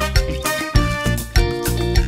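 Upbeat background music with a steady beat and bass notes.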